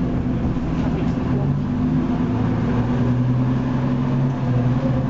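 Leyland Lynx Mk2 bus's Cummins L10 straight-six diesel engine heard from inside the passenger saloon as the bus drives, a steady drone over road noise whose pitch shifts a few times.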